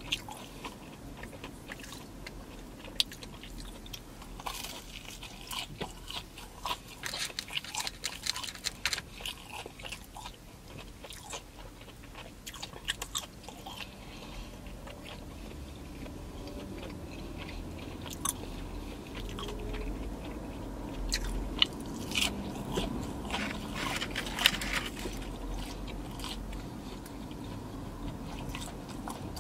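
Close-miked biting and chewing of breaded chicken pieces dipped in sauce, with sharp crunching bites in two busy stretches, a few seconds in and again past the middle.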